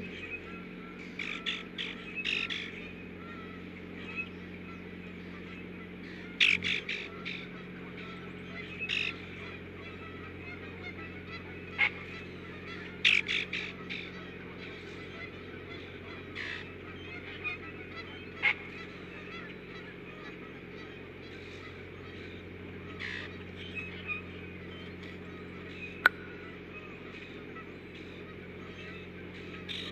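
Short honking bird calls come in scattered groups of two to four, loudest about 6 and 13 seconds in, over a steady hum.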